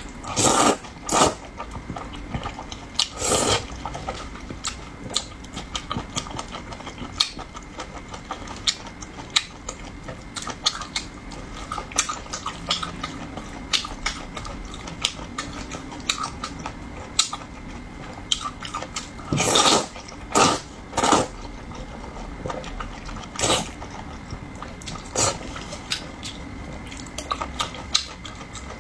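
A person eating close to the microphone: small wet chewing clicks throughout, broken by several louder slurps, two near the start, one about three seconds in and a cluster around twenty seconds in.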